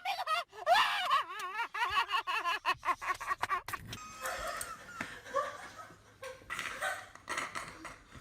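A woman laughing in a long, wavering run of high-pitched giggles through the first few seconds, followed by quieter mixed background noise.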